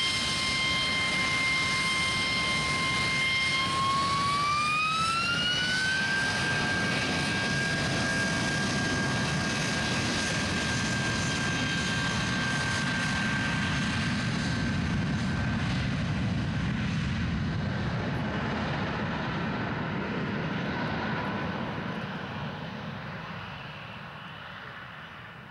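An Airbus A320-232's IAE V2500 turbofan engines spool up to takeoff thrust: a steady fan whine rises in pitch about four seconds in, then holds over a broad jet rumble as the airliner accelerates down the runway. The sound fades near the end as the aircraft moves away.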